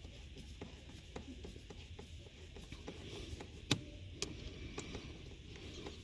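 Small clicks and taps of hands working with tools and parts, with one sharper click a little past the middle.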